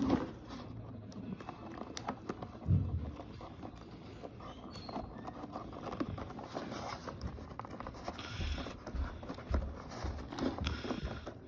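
Hands untwisting a plastic-coated twist tie and handling a cardboard toy box: irregular rustling and scraping with a few soft thumps, the loudest about three seconds in.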